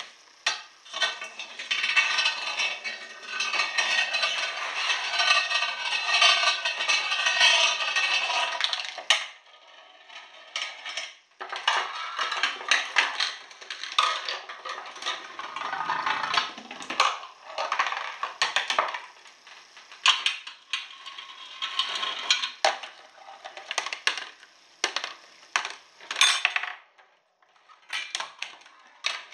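A homemade chain-reaction machine running. Near the start comes a loud, steady hiss lasting about eight seconds, then a long run of irregular clattering, clinking and knocking as balls and parts trip one another.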